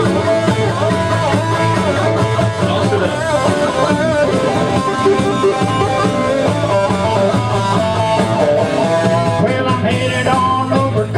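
Live band playing a rock song: guitar with several voices singing together into microphones.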